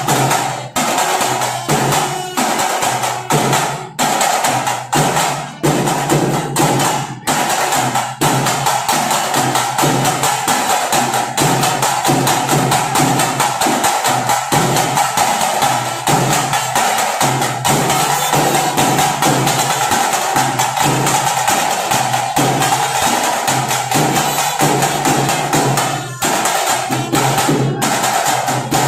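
Fast, continuous drumming in a steady, driving rhythm of sharp strokes, with a brief dip about 26 seconds in.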